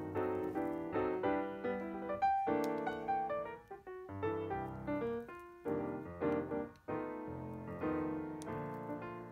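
Background piano music: a continuous run of notes and chords.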